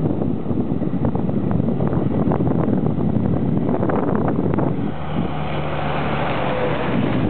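Wind buffeting the microphone with a dense low rumble. From about five seconds in, a motor vehicle's steady engine hum and tyre hiss join it.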